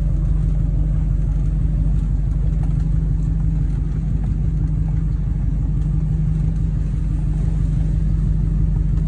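Pickup truck engine and road noise heard from inside the cab while driving: a steady low rumble.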